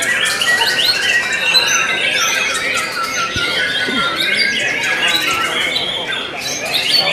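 Many caged songbirds singing at once at a bird-song contest: a dense, unbroken mix of overlapping whistles, trills and chattering calls.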